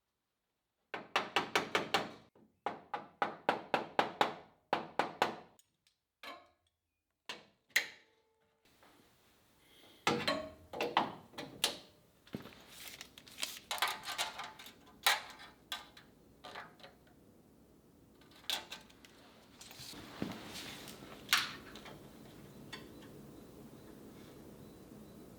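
A run of sharp knocks and clanks, in quick bursts of several strikes at first, some with a brief ringing tone; from about nine seconds in, scattered knocks over a faint steady hiss.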